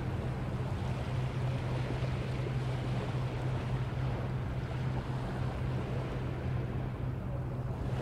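Small waves washing on the beach, over a steady low hum.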